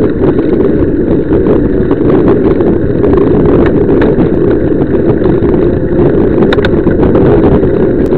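Steady, loud wind buffeting the microphone of a bicycle-mounted action camera while riding at speed, with road rumble and scattered small knocks.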